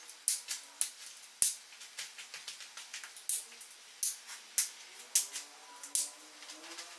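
Background music: a crisp clicking percussion beat, about two clicks a second, over faint sustained tones.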